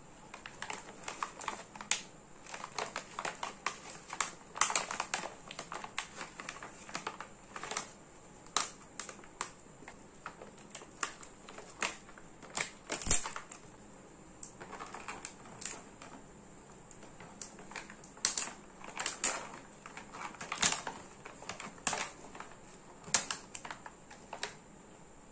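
Plastic Luvit Luscious Dark chocolate pouch and foil chocolate wrappers handled and torn open by hand: irregular crinkling and crackling with scattered sharp snaps, the sharpest about halfway through.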